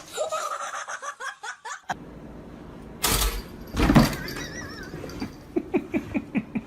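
People laughing, ending in a run of short, quick laughs, with a loud noisy burst about three seconds in.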